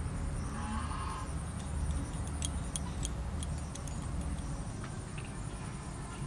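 Hands pressing and shaping wet clay, with a few faint scattered clicks over a low steady rumble.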